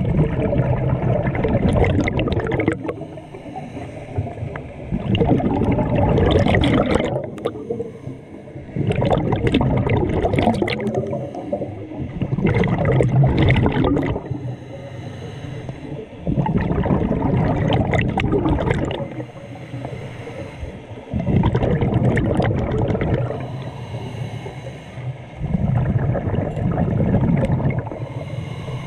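Scuba diver breathing underwater through a regulator: about seven breaths, each a loud, bubbling rush of exhaled air, with quieter inhalations between.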